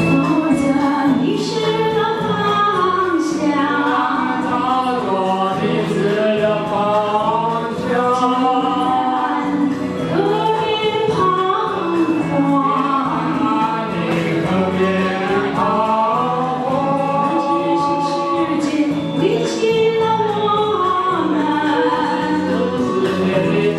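A woman and a man singing a karaoke duet into handheld microphones over a recorded backing track.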